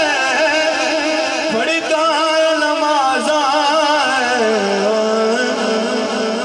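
A man singing a devotional Punjabi kalam into a microphone through a sound system. His ornamented, wavering line drops about four seconds in to a long held lower note.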